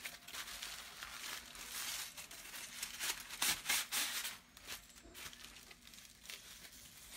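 Aluminium foil crinkling and rustling as it is wrapped and pressed flat by hand, in irregular bursts that grow fainter after about four seconds.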